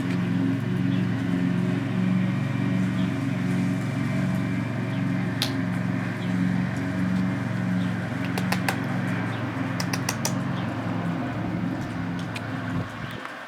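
A motor running steadily with a low hum that pulses about twice a second, a few sharp clicks over it, then cutting off shortly before the end.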